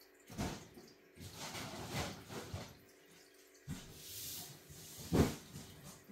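Handling noises: scattered rustles and knocks, with a sharp, louder knock about five seconds in.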